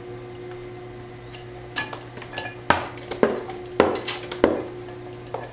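Steel plane scraping and clicking against a leather-hard clay pot turning on a potter's wheel, over a steady hum. The scrapes start about two seconds in, and the loudest four come about half a second apart.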